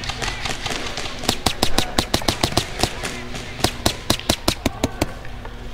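Airsoft gunfire: rapid sharp cracks in two bursts of several shots a second, starting about a second in and stopping about five seconds in.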